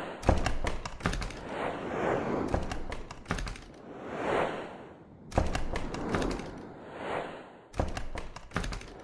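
Motion-graphics sound effects: a series of noisy whooshes, each swelling and fading over about a second, broken up by sharp thuds and clicks every second or two.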